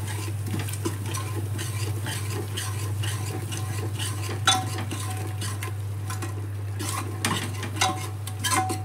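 Steel spoon stirring and scraping thick masala gravy with curd in an aluminium pressure cooker, the gravy sizzling lightly. The spoon clinks against the pot a few times, about halfway through and near the end.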